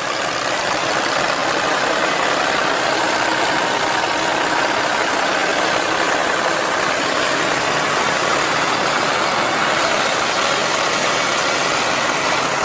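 Tractor engine running steadily, heard as an even, noisy drone without much low rumble.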